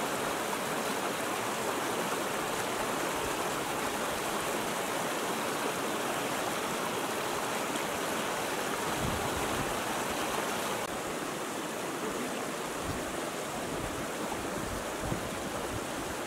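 Fast mountain stream rushing and splashing over boulders, a steady rush of white water that drops a little in level about two-thirds of the way through.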